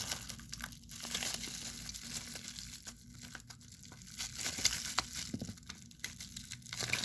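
Toy packaging crinkling and rustling as it is opened by hand, with small irregular clicks.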